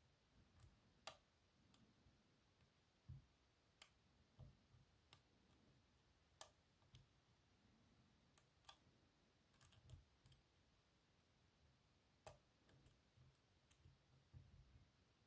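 Faint, irregular metallic clicks of a pick and tension wrench working the pins of an ISEO R6 six-pin dimple lock, pins setting one by one under tension. About a dozen separate clicks, a few louder than the rest.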